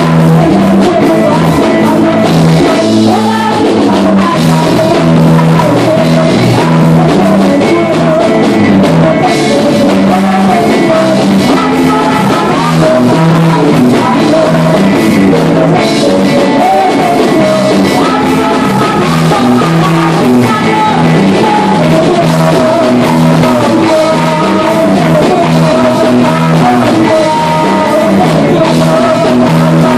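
Live worship band playing a song: a woman sings lead through a microphone over electric guitar and drums, loud and continuous.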